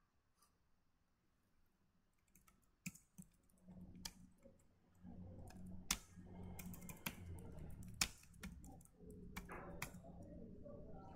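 Computer keyboard typing: a run of key clicks and taps starting a few seconds in, over a faint low hum.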